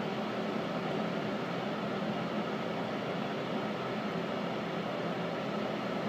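Steady hum and hiss inside a subway car, typical of its ventilation fans running, with no rail clatter.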